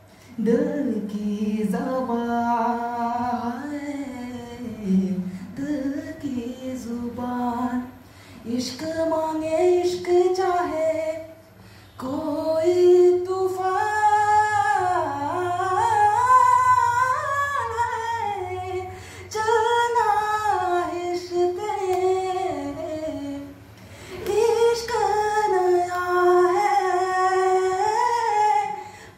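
A man singing a slow Hindi song in long, wavering held phrases with short breaks for breath between them.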